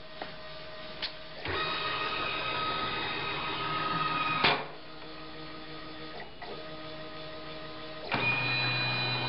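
Stepper motors driving the three linear actuators of an XYZ gantry through a series of programmed moves: a steady whine of several pitches that changes as each axis starts and stops. A louder move begins about a second and a half in and ends with a click, a quieter one follows, and another louder move starts near the end.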